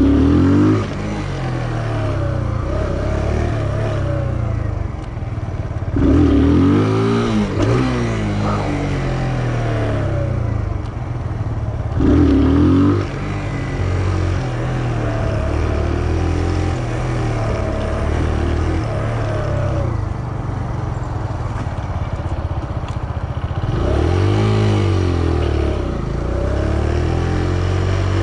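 Small 125cc single-cylinder motorcycle engine running under way, revving up sharply and easing back off every few seconds, with a steadier run between the surges.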